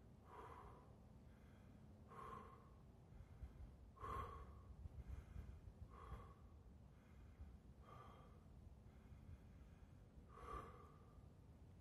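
Faint, slow breaths, about one every two seconds: a man breathing steadily through the burn of a fermented ghost pepper.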